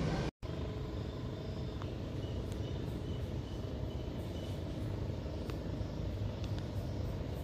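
Steady low outdoor rumble, cut off briefly about half a second in. Faint high chirps sound about twice a second for a couple of seconds in the middle.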